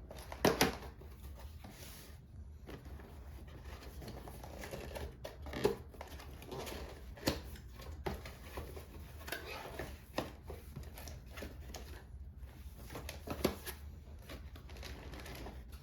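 A CPU cooler's cardboard box and packaging being handled and opened: scattered taps, clicks and rustles, with a few sharper knocks.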